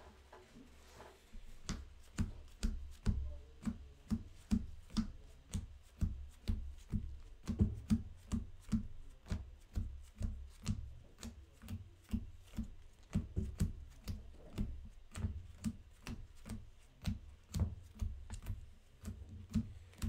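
A deck of playing cards being shuffled by hand: a steady run of soft slapping clicks, about two a second, starting about two seconds in.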